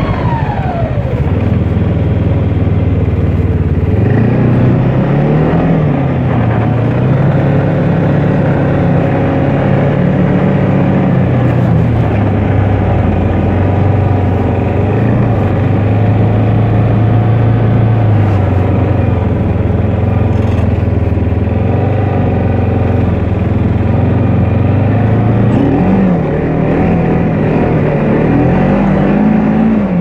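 Snowmobile engine running, its pitch rising and falling repeatedly with the throttle.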